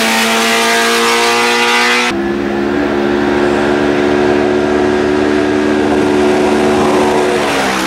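Off-road race vehicle engines running hard at high, steady revs. One passes close by with a gritty, bright edge for the first two seconds. The sound then changes abruptly to another engine holding a steady high note as it comes up the track, dropping slightly near the end.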